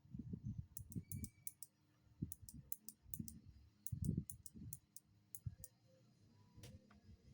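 Kailh Box Jade clicky mechanical keyboard switches being typed on in quick runs: crisp high clicks from the switches' click bars over duller keystroke thuds. The typing thins out after about five seconds.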